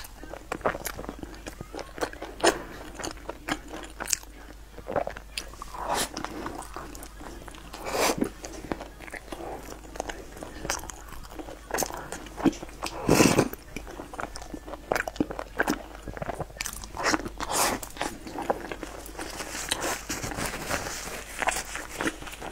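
Close-miked eating of a soft pastry: chewing and biting, with irregular crunches and wet mouth clicks.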